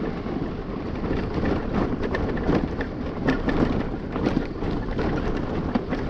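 A Honda scooter riding over a rough gravel and dirt track: a steady rumble of wind and road noise with many small clicks and knocks from stones and rattling bodywork.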